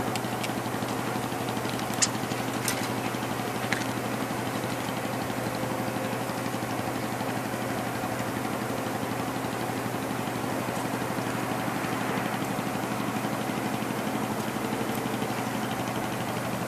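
A steady engine hum, like a motor idling, with a few short clicks about two to four seconds in.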